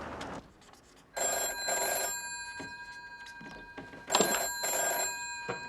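Telephone bell ringing twice, each ring about a second long and about three seconds apart, the bell still sounding between rings.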